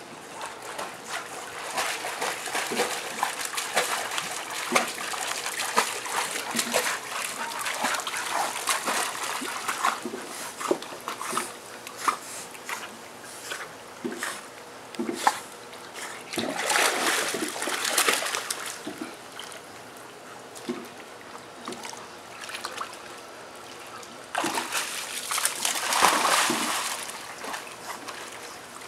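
Dogs paddling in a swimming pool, the water splashing and sloshing around them, with louder bouts of splashing about halfway through and again near the end.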